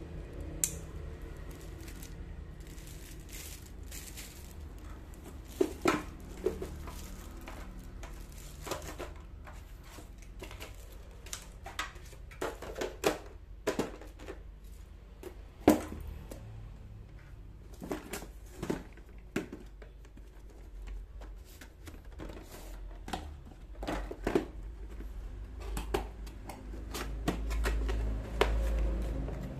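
Paper leaflets, cardboard boxes and plastic wrapping being handled while hair clipper packaging is unpacked: irregular crinkles, rustles and sharp clicks, with a low rumble near the end.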